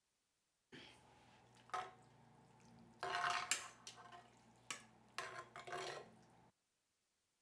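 Metal ladle scooping and stirring thick chili in a cast-iron Dutch oven: wet scraping and clinks in a few short bursts, loudest about three seconds in, over a low steady hum.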